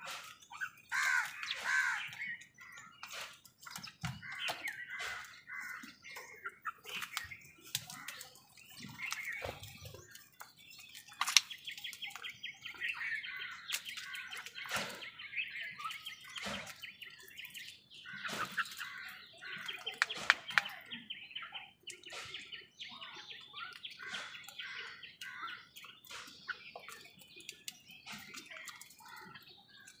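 A feeding flock of house crows and mynas calling and chattering continuously, with scattered sharp taps.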